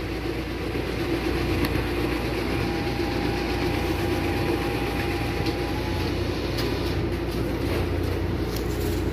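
Fuji Xerox ApeosPort-VII C3373 multifunction printer running a print job: a steady mechanical whir and hum, with a faint steady whine for a few seconds in the middle and a few light clicks.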